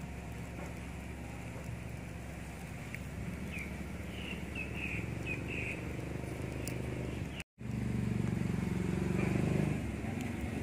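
A steady low engine hum, louder for a couple of seconds near the end, with a few short bird chirps about halfway through.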